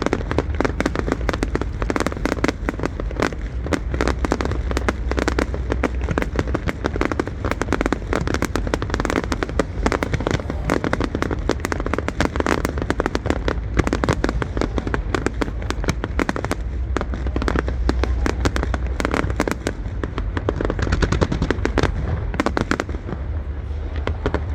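Fireworks display going off in a rapid, continuous barrage of bangs and crackles over a low rumble.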